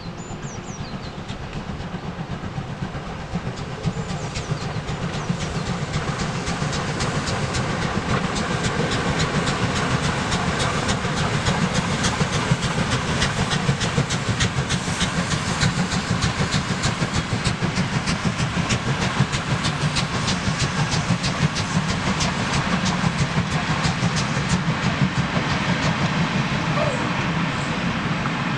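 DR class 52 steam locomotive 52 8154-8, a two-cylinder 2-10-0, hauling a passenger train past. Its exhaust beats and running gear grow louder over about the first ten seconds as it approaches and passes, then the coaches roll by with a steady rhythmic clatter.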